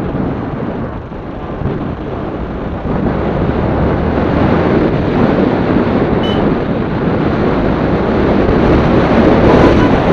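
Wind rushing over the microphone of a camera riding on a moving motorcycle, with the bike's engine and road noise underneath. It grows louder about three seconds in. There is a single short tick about six seconds in.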